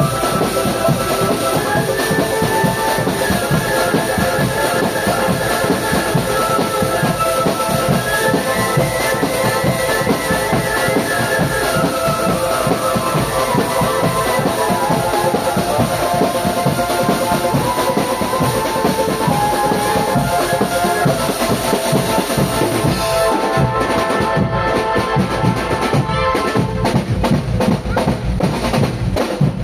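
Marching drum band playing: a stepping melody over continuous drumming with bass drum, then the melody thins out near the end and the drums carry on.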